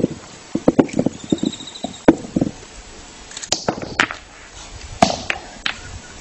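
Capuchin monkey pounding a nut on a wooden log with a hand-held stone: a run of sharp, irregular knocks of stone on wood, with a quick cluster about a second in and single louder strikes about two and five seconds in. A bird gives a brief warbling call about a second in.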